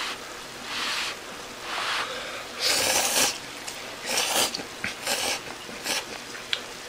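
A man slurping thick yakisoba noodles in about half a dozen short, airy slurps, the loudest about three seconds in.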